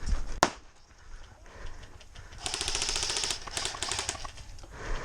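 A single sharp crack about half a second in, then two quick bursts of airsoft rifle fire on full auto, a very fast even rattle with a whine under it, starting about two and a half seconds in.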